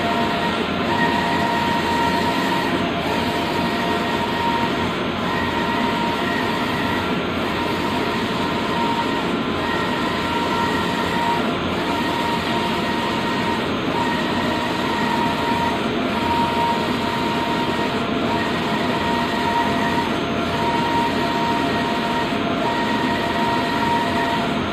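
STRATOJET HAWK wide-format inkjet printer running: steady machine noise with a whine that comes and goes about every two seconds as the print-head carriage sweeps back and forth across the banner.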